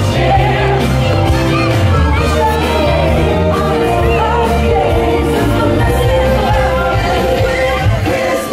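Music with singing over a steady bass beat.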